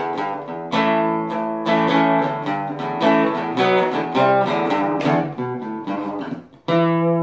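Acoustic guitar music, chords picked and strummed. Near the end it pauses briefly, then a final chord is struck and left ringing.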